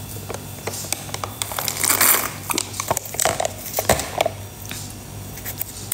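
A woman drinking from a thin clear plastic cup held to her mouth: scattered small clicks and crinkles of the plastic as it is handled, with a short noisy sip about two seconds in.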